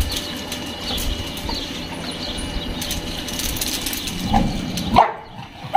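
Scattered light clicks and rustles as a group of dogs moves about on a tiled floor, with birds chirping. Near the end comes a short louder sound, then the high sounds drop away.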